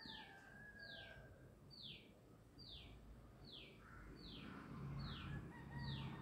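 A bird calling faintly: a short high note sliding downward, repeated evenly about once a second.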